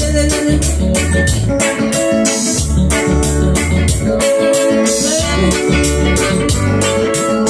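Live band music: an electronic keyboard playing sustained organ-like chords with an electric guitar, over a steady beat and a heavy bass line.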